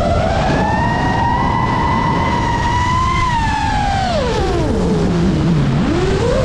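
FPV drone's brushless motors whining over a rush of propeller noise. The pitch holds high, falls steeply about four seconds in as the motors slow right down, then climbs back fast near the end as the throttle returns.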